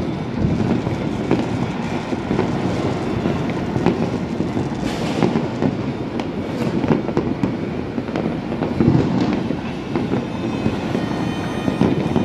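Fireworks and firecrackers going off all across a city at once, a dense rolling rumble of many distant bangs and crackles, with a sharper, louder bang about five seconds in.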